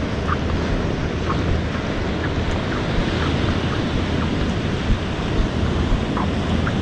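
Rough surf breaking and rolling on a sandy beach, with wind buffeting the microphone. A few faint short squeaks come through now and then.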